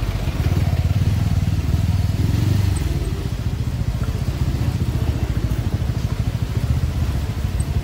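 Motorcycle engine running at low road speed, heard from the rider's seat as a steady low thrum; it swells a little in the first few seconds, then eases back.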